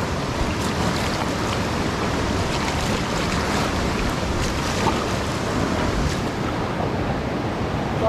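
Rushing white-water river around a raft: a steady wash of water noise with scattered short splashes.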